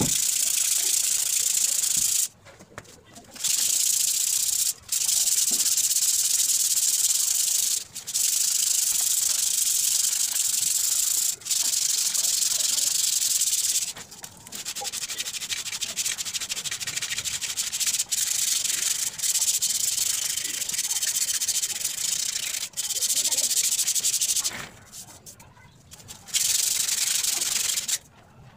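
Sandpaper rubbed by hand over the rusty steel tube of an office chair's five-legged base, stripping the rust: a steady high rasping hiss broken by brief pauses every few seconds.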